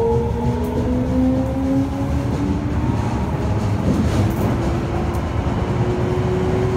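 Toei 5300 series subway train's Mitsubishi GTO-VVVF inverter whining and rising slowly in pitch as the train accelerates, with a step in the tone about three seconds in, over the steady rumble of the wheels on the rails.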